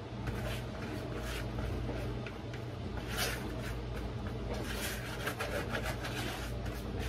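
Silicone spatula scraping the last of the pecan pie filling out of a plastic mixing bowl: a string of short, uneven scrapes, busiest in the second half, over a steady low hum.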